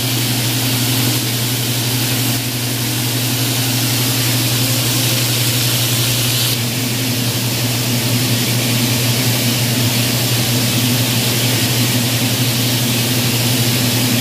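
Fish frying in hot oil in a wok: a steady, loud sizzle, with a steady low hum underneath.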